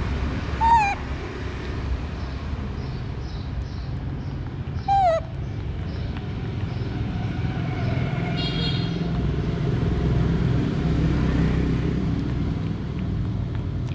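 A young monkey gives two short cries that fall in pitch, one about a second in and another about five seconds in, over a steady low rumble.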